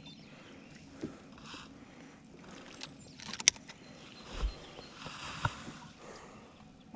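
Handling noises on a fishing boat: a few scattered clicks and knocks over a faint background, the sharpest click about halfway through, followed shortly by a low thump.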